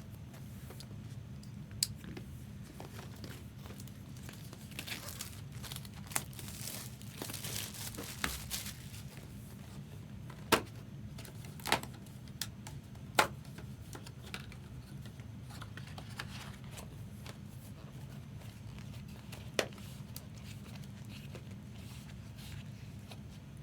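Trading card box and foil packs being torn open by hand: wrappers crinkling and tearing, with a few sharp snaps, over a steady low hum.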